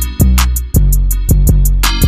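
Background music with a steady drum beat, bass and chords, with a fast, even high tick over it.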